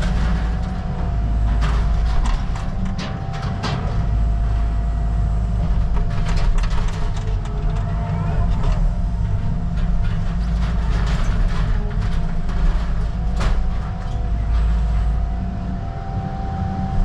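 Caterpillar 306 excavator running steadily with a low engine drone and a faint steady whine, while mobile-home debris cracks and snaps under the machine again and again.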